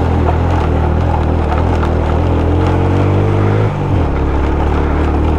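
Suzuki GS 150SE single-cylinder four-stroke motorcycle engine running under load on a rough, rocky track. Its note climbs slightly, then drops abruptly about three and a half seconds in and carries on at a lower pitch, with scattered light clicks and knocks over it.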